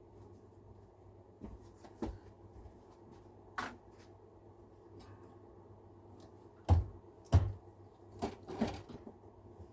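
Scattered clicks and knocks of small tools and parts being handled and set down on a workbench, the two loudest, with a dull thud, close together about seven seconds in, over a low steady hum.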